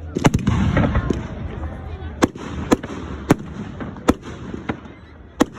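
Fireworks going off: a dense burst of crackling in the first second, then a run of sharp, separate bangs.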